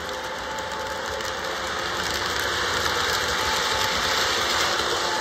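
Electric model trains running on the layout, among them a Baltimore & Ohio F3 diesel pair: a steady whir of small motors and gears with wheel rattle on the track and a faint thin whine, growing a little louder toward the end.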